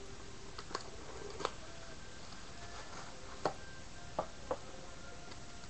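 Light clicks and taps from handling a trading card box and its packs, five sharp ticks scattered over a steady faint hiss.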